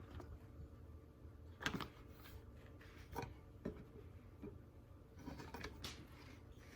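Faint handling sounds: a few light, sharp clicks and rubbing of objects from a soldering kit being moved and set down, spread about a second apart.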